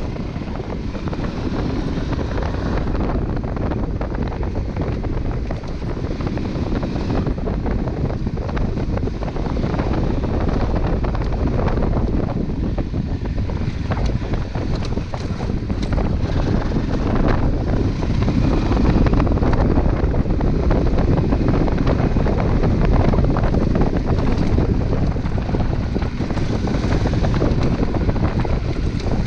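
Wind buffeting the microphone of a Honda Transalp 600 motorcycle riding a dirt track, with its V-twin engine running underneath, getting a little louder about halfway through.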